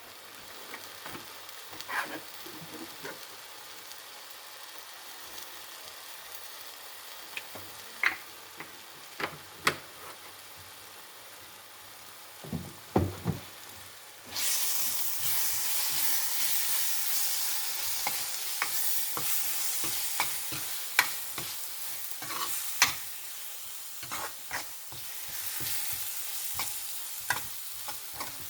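Onion and ginger-garlic masala with turmeric and coriander powder frying in a pan, with a spoon knocking and scraping against the pan as it is stirred. About halfway through, the sizzle suddenly gets much louder as oil goes into the pan.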